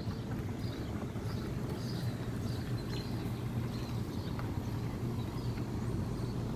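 Steady low hum of an engine running, with small birds chirping repeatedly above it.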